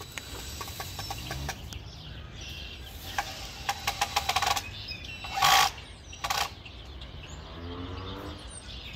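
Cordless drill driving screws into wood: a rattling run of rapid clicks about three seconds in, then two short, louder bursts of the drill less than a second apart.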